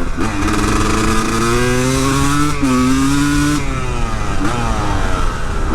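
Honda CR250 two-stroke single-cylinder engine being revved hard to clear out its loaded-up Mikuni carburettor. The revs climb and are held high, then fall away a little over halfway through.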